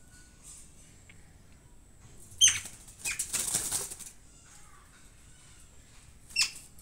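A small animal in a wire cage, with cats pawing at the cage: two short, sharp, high squeaks that fall in pitch, about four seconds apart, and about a second of scuffling just after the first.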